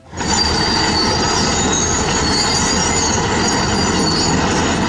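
Heavy earthmoving machinery at work: diesel engines running under a dense, steady clatter, with high, wavering metallic squeals from steel crawler tracks.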